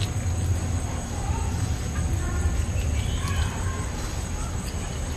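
Steady outdoor background: a constant low rumble, a steady high-pitched insect drone, and a few faint bird chirps in the middle.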